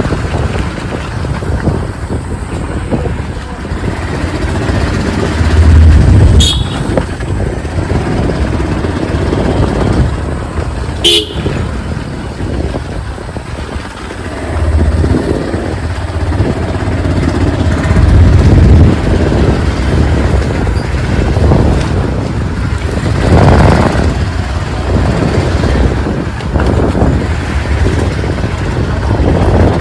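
Motorcycle riding in city traffic, with heavy wind rumble on the microphone that swells and fades. Two short horn toots sound about five seconds apart.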